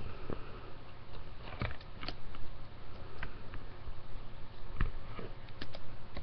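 Scattered small clicks and light knocks, about seven in all at uneven spacing, over a steady low hum.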